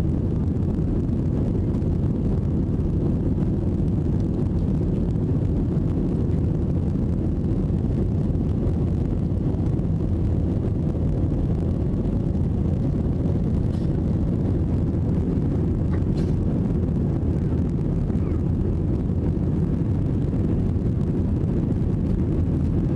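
Steady low roar inside an Airbus A320's cabin during the climb after takeoff: engine and airflow noise heard from a window seat, even and unbroken.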